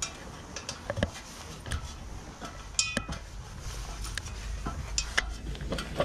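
Scattered sharp knocks and light metallic clinks, with one clink about three seconds in that rings briefly.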